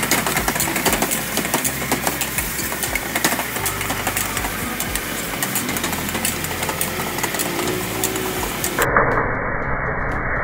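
Street-stall wok stir-fry: the steady roar of a high-pressure gas wok burner, with a metal ladle and spatula clattering and scraping against the wok. About nine seconds in, music with a muffled, radio-like sound cuts in over the cooking.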